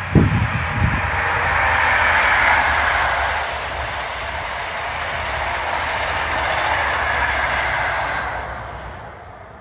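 An HST (High Speed Train) led by a Class 43 power car passing at speed, with a few low thumps in the first second. The rush of wheels on rail builds to a peak about two and a half seconds in, holds steady with a light clickety-clack as the Mark 3 coaches go by, then fades near the end.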